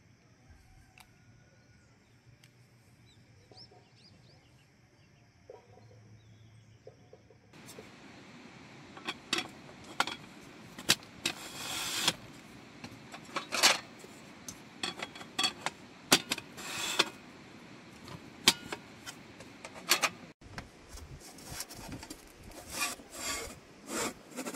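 A quiet stretch, then about a third of the way in irregular scraping and rubbing strokes begin, some brief and some drawn out.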